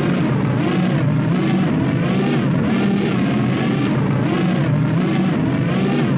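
Original Star Trek series science-fiction sound effect: a steady, dense electronic hum whose pitch wavers up and down regularly, a little under twice a second.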